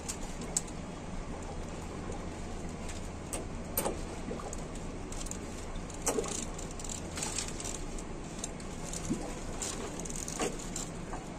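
Scattered light metallic clicks and clinks of hand tools and fittings being handled while the cooling tower's sprinkler assembly is taken apart, over a steady low hum.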